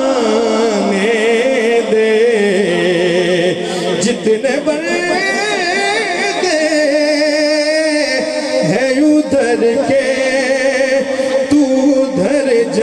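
Naat reciter singing long, wavering, wordless melismatic notes into a microphone, with steadier held notes underneath in the second half.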